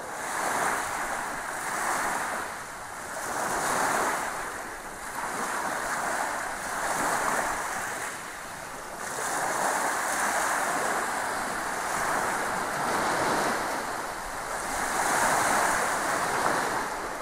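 Sea waves washing in, the sound swelling and falling about every two to three seconds.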